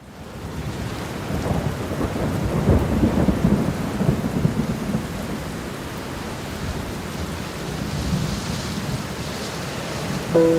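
Steady rain, fading in at the start, with a low rumble of thunder swelling between about one and five seconds in. A held musical chord comes in at the very end.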